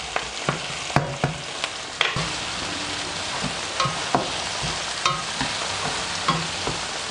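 Chopped onion, garlic and tomato sizzling in oil in a stainless steel frying pan, stirred with a slotted spatula that clicks and scrapes against the pan every second or so.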